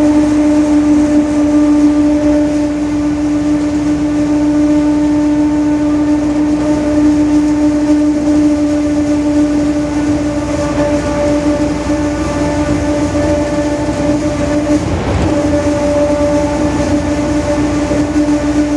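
Rear-axle differential of a Mercedes-Benz OF-1721 BlueTec 5 bus droning very loudly at a steady pitch. There is a brief low rumble about 15 seconds in.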